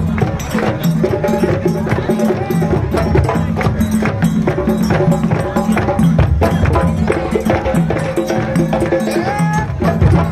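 Festival percussion ensemble drumming a fast, steady rhythm of many strokes, with pitched melody notes held over the drums.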